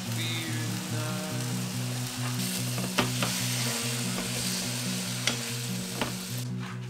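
Tomato slices sizzling in oil in a square frying pan, the hiss building up a couple of seconds in. Metal tongs click sharply against the pan three times as the slices are turned.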